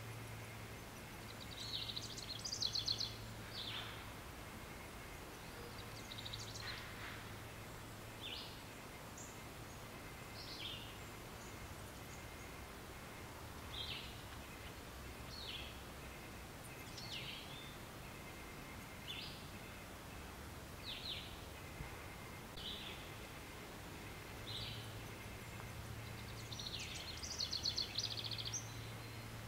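Birds calling in nature ambience: short downward-sweeping chirps repeated every second or two, with a rapid trill about three seconds in and another near the end, over a steady background hiss and a low hum that comes and goes.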